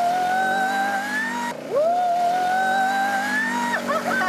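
Quad bike (ATV) accelerating away: its high whine sweeps up sharply and then climbs slowly, twice over. Near the end, high shrieking voices.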